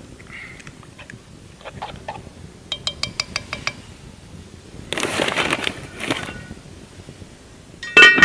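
A metal spoon stirring batter in a cast iron Dutch oven: a quick run of clinks against the pot about three seconds in, and a scraping rush a couple of seconds later. Near the end the cast iron lid goes on with a loud ringing clang.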